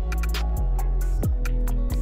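Background music with a steady beat: crisp ticks over sustained notes, and deep bass notes that slide down in pitch roughly every two-thirds of a second.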